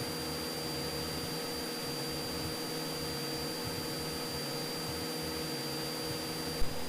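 Steady in-flight drone of a Cessna 172's engine and propeller, heard through the headset intercom as an even hum with a hiss over it. A single short click comes near the end.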